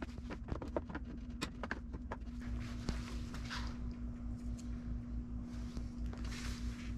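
Sharp clicks and taps of a screwdriver prying plastic push-pin clips out of a Jeep's plastic bumper cover at the grille, several in the first two seconds, then a few soft scrapes over a steady low hum.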